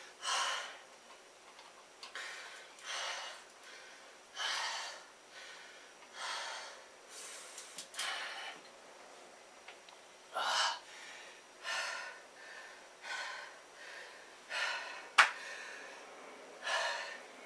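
A man breathing hard after a set of push-ups, with loud breaths every second or so that ease slightly as he recovers. One sharp click about fifteen seconds in.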